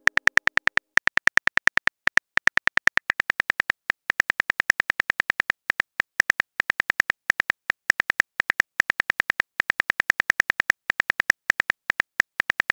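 Smartphone keyboard key-click sound effect: rapid, evenly spaced taps, about ten a second in runs with brief pauses, as a text message is typed out letter by letter.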